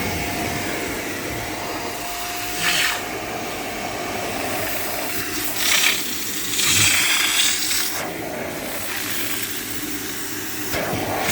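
Kärcher carpet and upholstery spray-extraction cleaner's suction motor running steadily with a whine, with a few short surges of hissing as the nozzle works the fabric.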